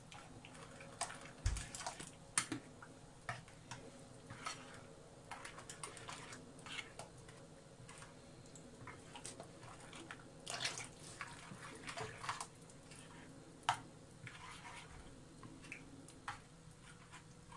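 Spoon stirring a runny semolina-and-milk harcha batter in a ceramic bowl: irregular light clicks and taps of the spoon against the bowl.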